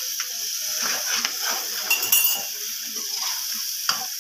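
Metal spoon clinking and scraping against a steel pot as frying vegetables and chicken are stirred, over a steady sizzle of hot oil. A brighter, ringing clink comes about two seconds in.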